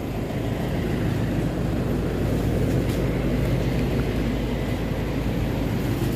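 Steady low rumble of a vehicle engine running at idle, holding an even level throughout.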